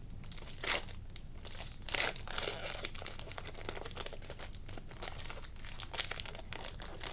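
Foil wrapper of a trading-card pack crinkling and tearing as it is pulled open by hand, a run of sharp crackles with the loudest about a second and two seconds in.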